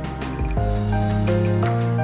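Background music with gentle melodic notes over a steady bass line.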